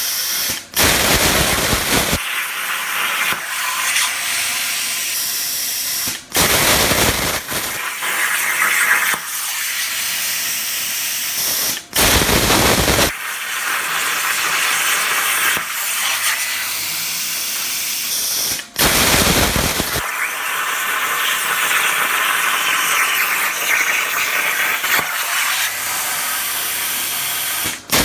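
A plasma cutter's torch hissing steadily as it cuts thin sheet steel. The hiss is broken by brief drop-outs about every six seconds, each followed by a louder rush lasting a second or so.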